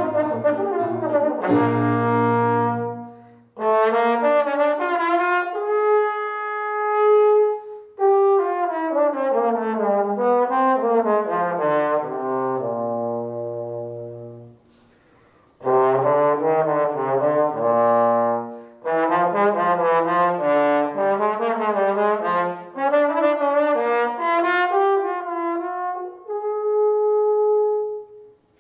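Unaccompanied solo trombone playing quick running phrases that rise and fall, with short breaths between them. There is a pause about halfway through, and a held note near the end.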